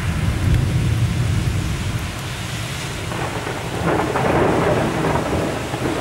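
Thunder rumbling over steady rain: a deep rumble sets in suddenly at the start and rolls on, swelling again about four seconds in.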